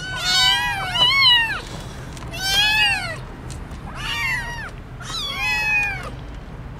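Several young kittens meowing, high-pitched cries that come in overlapping bouts about once a second.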